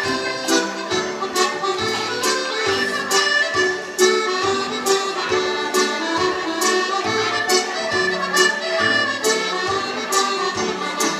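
Accordion playing a lively traditional Irish dance tune, with sharp, regularly spaced taps sounding over the music.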